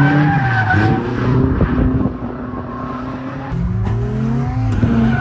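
Nissan 240SX drift car's engine revving, its pitch rising and falling several times, with the tires skidding.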